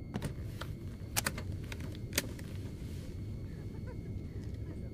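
Steady low hum of a jet airliner cabin in a film soundtrack, with a handful of light, sharp clicks in the first two seconds or so.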